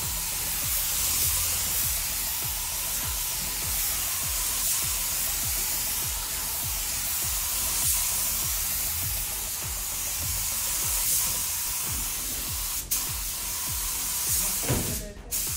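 Background music with a steady beat over the hiss of a compressed-air paint spray gun spraying automotive paint onto a car fender. The hiss cuts out briefly near the end.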